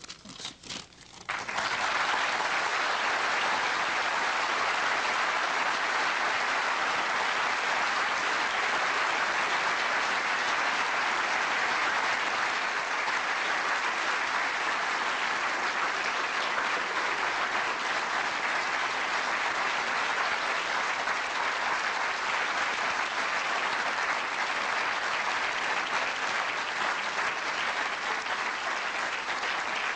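Audience applauding: a few scattered claps, then about a second in it swells into dense, steady clapping that keeps going.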